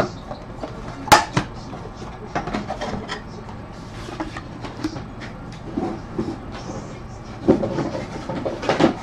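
Hands handling a hard trading-card box and its lid: a sharp knock about a second in, scattered clicks and taps, then a cluster of knocks and rustling near the end.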